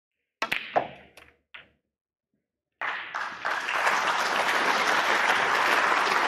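Snooker cue striking the cue ball and balls clicking together as the black is potted, a few sharp knocks within the first two seconds. From about three seconds in the audience applauds steadily, greeting a break that has just passed fifty.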